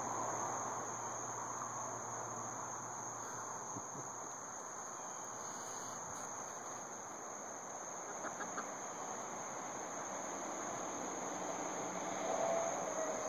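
Backyard chickens clucking softly as they peck at scattered corn, over a steady high drone of insects.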